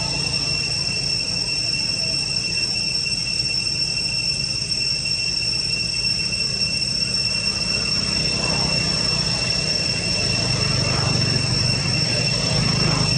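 Insects droning in a steady high-pitched whine, likely cicadas, over a low steady rumble.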